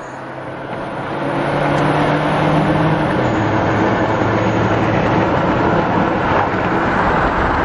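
Road and wind noise inside a taxi's cabin travelling fast, a steady rush that builds over the first couple of seconds, with a low engine hum underneath that fades after about three seconds.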